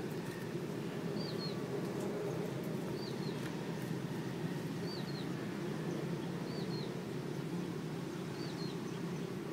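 Steady low background rumble, with a short, high two-note bird chirp repeating five times, about every two seconds.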